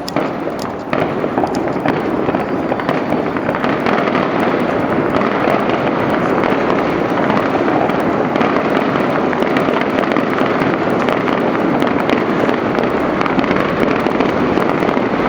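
Taipei 101 New Year fireworks display: a dense barrage of many bursts blending into a continuous crackling rumble, with sharp pops all through.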